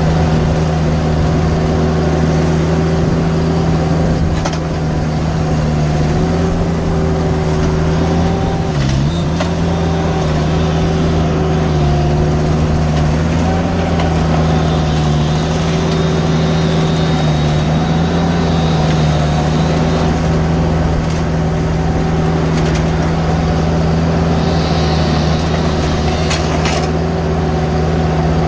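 Mini skid steer engine running steadily at high revs, its pitch dipping briefly about nine seconds in as it takes a load.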